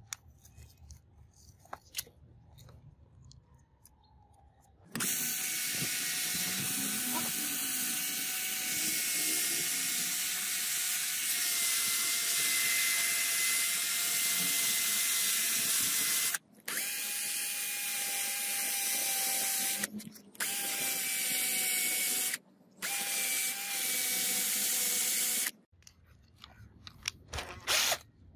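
Cordless drill running at speed, spinning an angle grinder armature clamped in its chuck while sandpaper is held against the armature to clean it. The steady whine starts about five seconds in, stops briefly three times as the trigger is let go, and ends a few seconds before the close. Light handling clicks come before and after.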